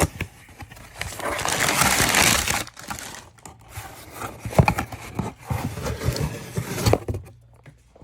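Packaging crinkling and rustling as it is handled, followed by a run of scattered knocks and clicks.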